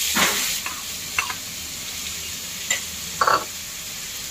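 Chopped onion and garlic sizzling in hot oil in a kadhai, a steady hiss with scattered pops and crackles that settles a little about half a second in. A brief louder sound cuts in about three seconds in.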